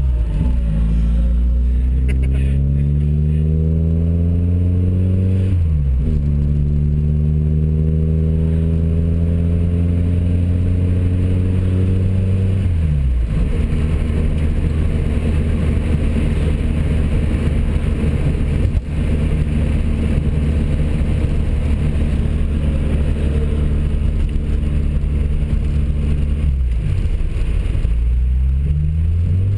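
Volkswagen Gol engine heard from inside the cabin, pulling up through the gears: its pitch climbs and drops back at gear changes right at the start, about six seconds in and about thirteen seconds in. It then holds a steady cruising note until another gear change near the end, after which the revs climb again.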